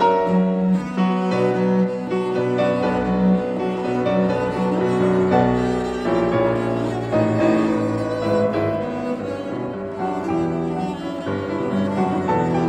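Instrumental classical music: sustained bowed-string notes, likely cello, with piano.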